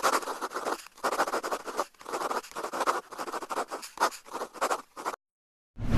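Scratching sound effect of handwriting, a series of short scratchy strokes that stops about five seconds in. A low thud comes near the end.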